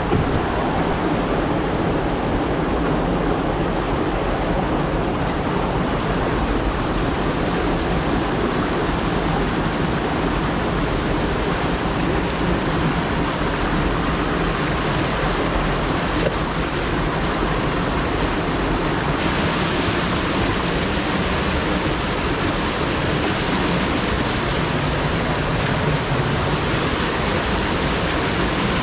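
Mountain creek rushing and cascading over rocks in a canyon, a steady wash of whitewater.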